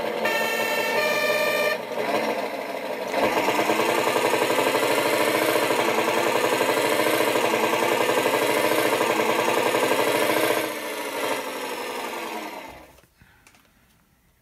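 Synthesised Scania V8 fire truck engine sound from an ESP32 sound controller, played through a small loudspeaker. After a few short stepped tones at the start, it runs at full throttle, its pitch climbing and dropping back several times as the simulated Allison automatic gearbox with torque converter shifts up. It then fades to near silence near the end.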